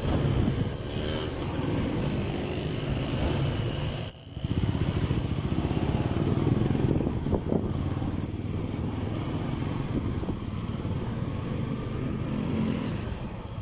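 Motorcycle engine running steadily as the bike rides along the street, the sound dipping briefly about four seconds in.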